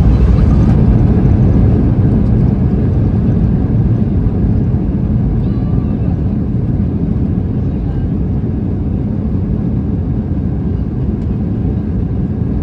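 Boeing 737-800 heard from inside the cabin: loud low engine and rolling rumble that slowly eases, typical of the jet slowing down on the runway after landing.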